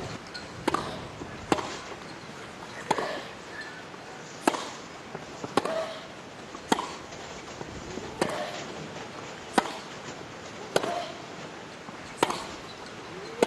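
Tennis rally: racket strikes on the ball going back and forth, about one every second and a half, eleven in all, with players' grunts after several of the shots.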